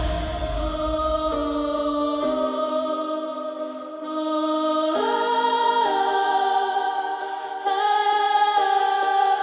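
Electronic worship music in a breakdown: sustained, choir-like chords that change every second or two, with no beat, and the deep bass fading out in the first few seconds.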